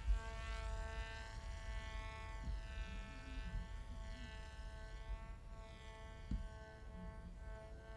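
Electric brushless motor (Hacker A20-50S) and APC 7x6 slow-flyer prop of a HotWing 1200 EPP flying wing in flight: a steady, high, buzzing whine at constant throttle, its tone swirling as the plane moves. A couple of low thumps, the loudest just after the start and about six seconds in.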